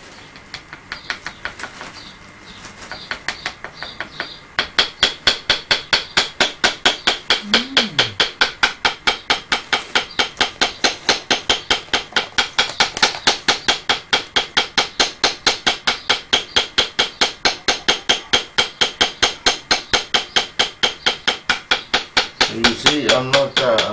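Traditional hand-tapped tattooing: a stick mallet strikes the handle of a tattoo comb in a fast, even rhythm of about five taps a second. The taps are lighter at first and turn louder and steady about four seconds in.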